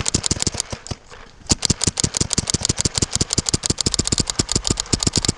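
Paintball marker firing in rapid strings of shots, about a dozen pops a second. There is a brief pause about a second in, then steady firing resumes.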